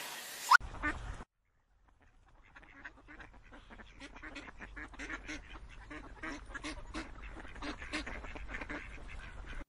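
Ducks on the water, mallards among them, quacking softly in many short quacks in quick succession, starting a couple of seconds in. A brief rising squeal sounds at the very start.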